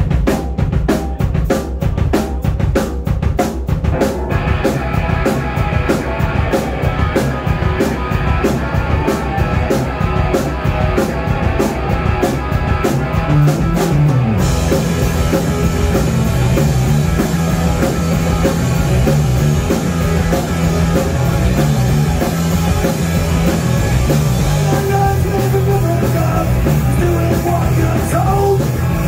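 Live punk rock band playing a song with drums, bass and electric guitar. It opens on a steady, fast drum beat, the band fills out about four seconds in, and a constant wash of cymbals joins about halfway through.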